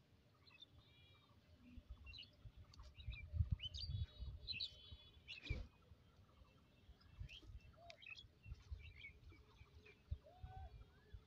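Small birds chirping and twittering, faint. Low thumps and rumbles close to the microphone are loudest a few seconds in, with one sharp knock about halfway through.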